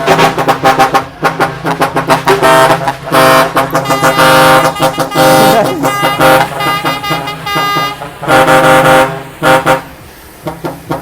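Many truck air horns sounding together, overlapping long held blasts and rapid short toots, over a steady low hum. The horns thin out to a few quieter toots near the end.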